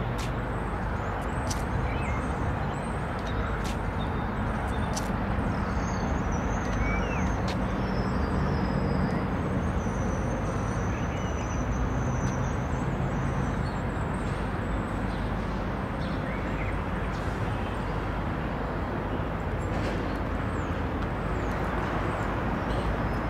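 Steady outdoor background noise with a low rumble, with a few faint clicks and some faint high tones partway through.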